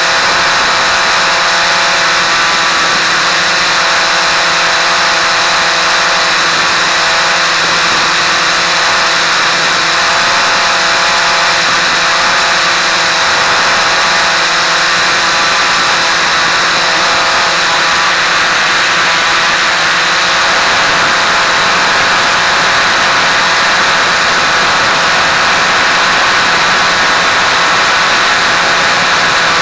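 Quanum Follow Me quadcopter's motors and propellers running in flight: a loud, steady whine of several tones at once, picked up by the camera on board.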